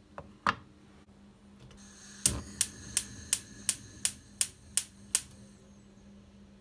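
A knock, then a run of eight sharp, evenly spaced clicks, about three a second, that stop abruptly, over a steady low hum.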